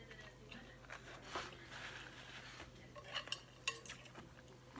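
Metal fork and spoon scraping and clinking against a plate while gathering noodles, with a cluster of sharp clinks about three seconds in.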